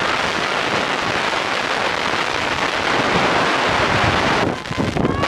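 Wind buffeting the camera's microphone: a steady rushing noise that dips briefly near the end.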